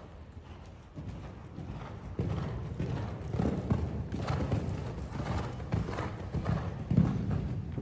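Hoofbeats of a horse cantering on the sand footing of an indoor arena and jumping a fence. The dull thuds come in a steady canter rhythm and get louder about two seconds in.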